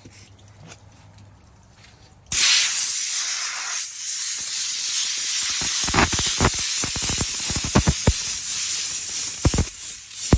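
Compressed-air blow gun hissing loudly as it blasts dust out of a reusable furnace filter. It starts suddenly a little over two seconds in and runs steadily, with irregular low thumps from the blast about halfway through.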